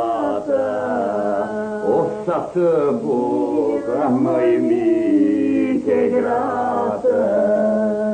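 Voices singing a slow, chant-like song in long held notes with a wavering melody over a steady held drone.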